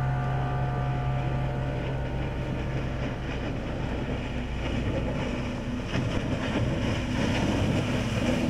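Motorboat with Volvo Penta sterndrive engines passing close at planing speed: a steady engine drone under the rushing hiss and splash of its bow spray and wake. The sound grows louder about six seconds in as the boat passes nearest.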